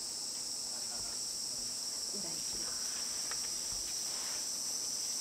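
Steady high-pitched chorus of insects buzzing in the trees, with a faint voice briefly about two seconds in.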